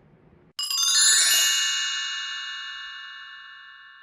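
Bright chime sound effect: a quick run of bell-like notes starts suddenly about half a second in, then the notes ring on together and fade slowly. It marks the finished build.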